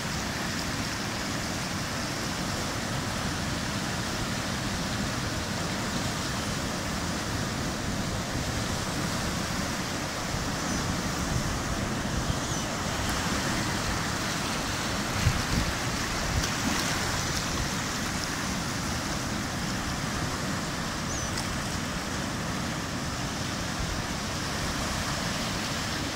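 Sea surf breaking and washing over low rocks along the shore: a steady rush of water with a few louder wave crashes around the middle.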